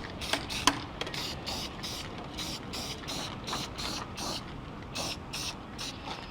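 Aerosol can of flat black spray paint hissing in quick short bursts, about two a second, as a coat is laid on. A couple of sharp clicks come in the first second.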